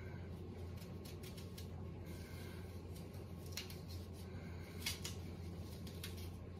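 Small knife cutting and scraping through a hand-held apple as it is cored: scattered short crisp cuts, the sharpest about three and a half and five seconds in, over a steady low hum.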